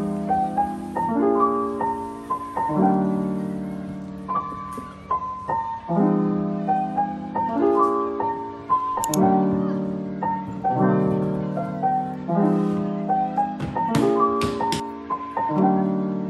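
Background piano music: soft repeated chords that change about every second and a half, with a few brief sharp clicks.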